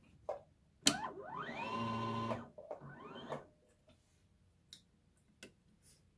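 Kenmore 385 sewing machine motor running with the bobbin winder engaged: a click, then a whine that rises in pitch and holds for about a second and a half, stops, and rises again briefly. The bobbin is failing to wind.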